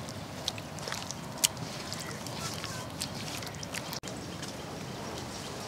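A hand squishing and mixing wet chili masala paste in a steel bowl: soft, scattered wet clicks and ticks over a steady outdoor background hiss.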